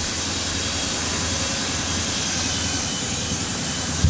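Toy RC flying-ball drone's small propellers whirring steadily, with a brief knock near the end.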